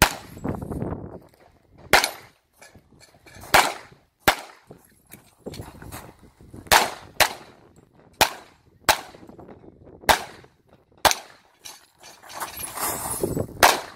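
Pistol shots fired in a practical shooting course of fire: about ten sharp cracks, some single and some in quick pairs, spaced unevenly as the shooter moves between positions.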